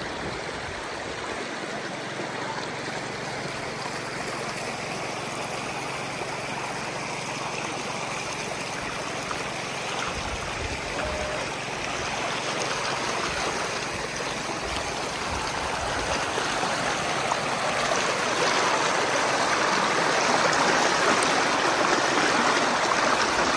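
Rocky stream flowing, a steady rush of water that grows louder over the second half.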